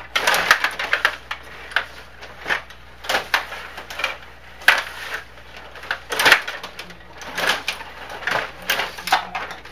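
Stiga rod hockey table in play: plastic rods and player figures clattering as they are pushed, pulled and spun, giving irregular sharp clicks and knocks, several a second.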